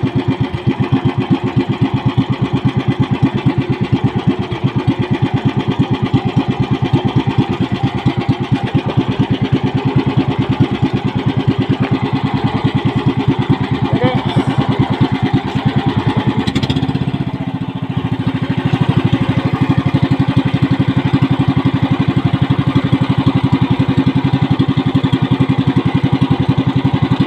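Small engine of an outrigger fishing boat running steadily close by, a fast even beat of firing strokes; a little past halfway its level dips briefly, then it picks back up slightly louder.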